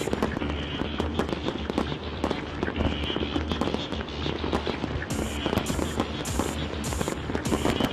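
Fireworks going off in quick succession, many sharp bangs and crackles, over music with a steady beat.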